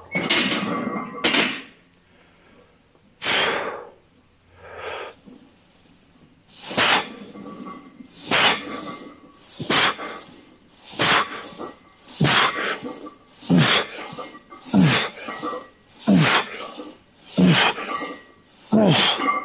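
A man's hard, forceful breathing under a heavy leg-press set. A few loose breaths come first, then about ten strong exhalations at roughly one every 1.2 s, one per repetition, several ending in a short falling grunt.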